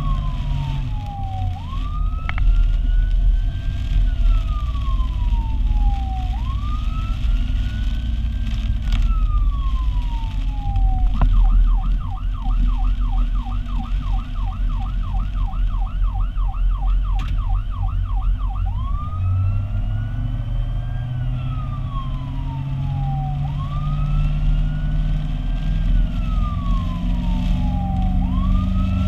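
Fire truck's electronic siren heard from inside the cab, cycling in a slow wail, switching to a fast yelp, about three to four cycles a second, for several seconds near the middle, then back to the wail. The truck's engine runs underneath, its pitch rising in the last few seconds as it speeds up.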